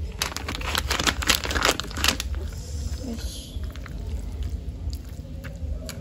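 A hand kneading raw squid pieces into flour in a stone mortar: wet squishing and crackling, busiest in the first two seconds and sparser after.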